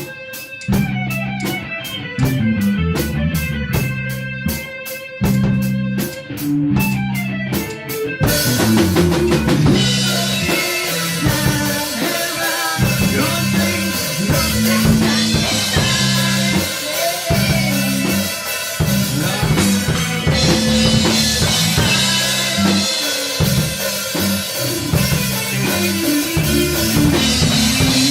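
Music with a drum kit: a sparser opening with a steady ticking beat, then the full band comes in about eight seconds in and plays on with drums and bass.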